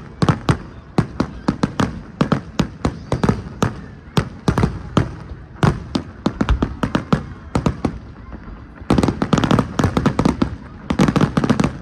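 Fireworks going off in a rapid, irregular series of sharp bangs, several a second, thickening into dense volleys about nine seconds in and again near the end.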